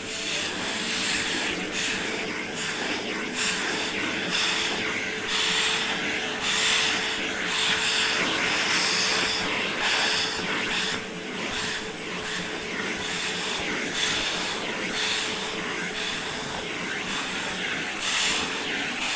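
1800 W canister vacuum cleaner running with a steady motor whine, its brush nozzle drawn over a Leonberger's long coat; the rushing-air hiss surges and drops again and again as the nozzle strokes through the fur.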